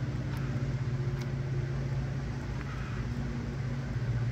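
A steady low machine hum, with a few faint clicks from a wrench being worked on an engine fitting.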